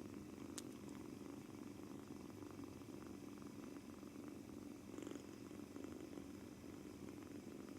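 A British Shorthair kitten purring steadily, a low, fast rumble that goes on without a break. The owner suspects the purring comes from nervousness.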